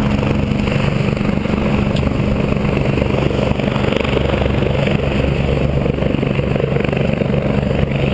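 Medical rescue helicopter's turbine engine and rotor running steadily on the ground after landing, loud and unbroken.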